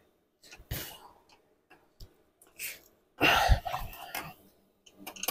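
Hand tools and metal parts knocking faintly on a first-generation Yamaha R1 engine block as the fourth piston is worked out. About three seconds in comes a loud rough burst of noise lasting about a second.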